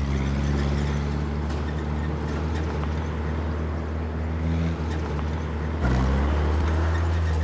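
Car engine running steadily as the car drives, a low hum that shifts in pitch and gets a little louder about six seconds in.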